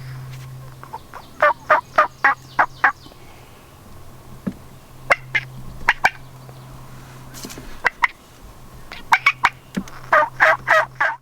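Turkey yelping in three runs of sharp, evenly spaced notes, about five a second, starting about 1.5, 5 and 9 seconds in. The last run stops abruptly.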